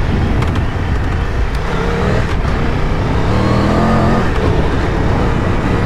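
Triumph Tiger 1200 Rally's 1160 cc triple engine pulling the bike along a dirt track, revs climbing in the middle and easing off again, over a steady rush of riding noise.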